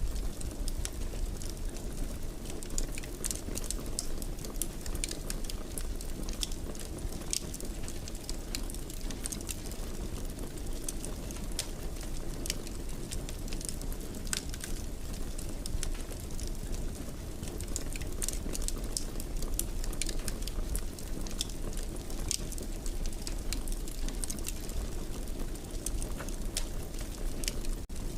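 Wood fire burning in a fireplace: a steady low rumble of the flames with frequent small, sharp crackles and pops scattered throughout.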